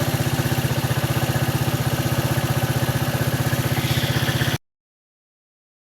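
Rusi TC125's single-cylinder four-stroke motorcycle engine idling with a steady, even beat, running on a freshly replaced carburetor. The sound cuts off suddenly about four and a half seconds in.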